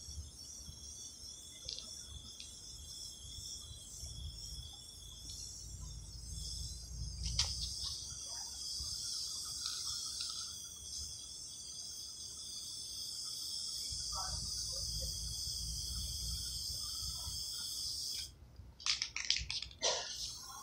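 Aerosol spray-paint can hissing in long sprays, over steady chirring of insects. Near the end the spraying stops and there is a short run of sharp clicks and rattles.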